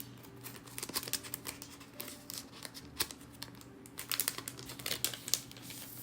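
Photo prints being handled and flipped through: crisp rustling and clicking of paper, in two quick flurries, about a second in and again around four to five seconds in.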